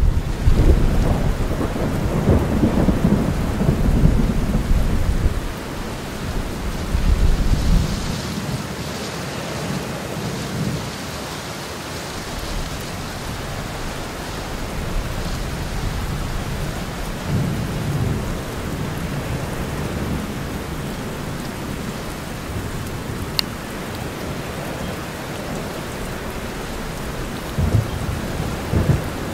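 Steady rain with rolls of thunder: a long low rumble over the first several seconds, then two shorter rumbles later on.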